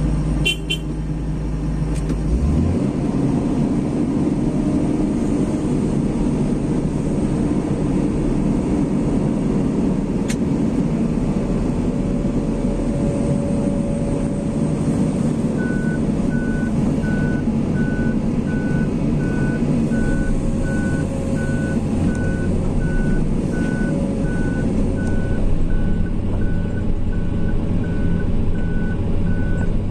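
Vehicle engine running steadily. About halfway through, a high electronic warning beep starts and repeats about twice a second until the end.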